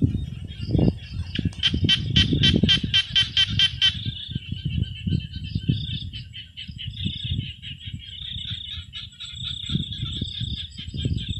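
Rustling and handling noise as a walking catfish is worked into a mesh net bag in grass, over a steady high chorus of night insects. From about a second and a half to four seconds in, a loud, rapid pulsed call of about five pulses a second stands out.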